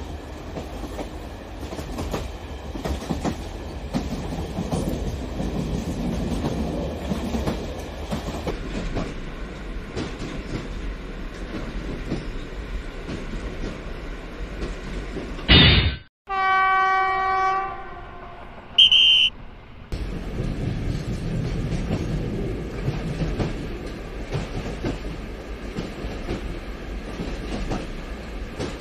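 Train running along the rails with a steady rumble and clickety-clack. About halfway through, a train horn sounds for about two seconds, followed by a short high whistle tone, before the rolling sound picks up again.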